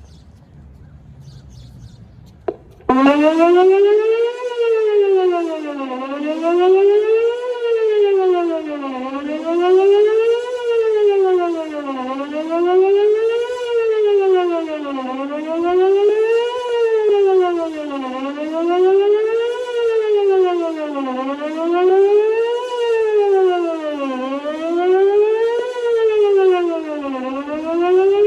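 Whelen WPS-2910 electronic outdoor warning siren: a click, then the siren comes on abruptly about three seconds in and wails, rising and falling in pitch about once every three seconds. It is loud, though the uploader thinks only about 8 of its 10 speakers are working.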